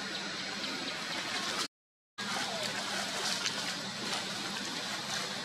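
Steady outdoor background noise, an even hiss with no distinct calls, broken by about half a second of total silence two seconds in.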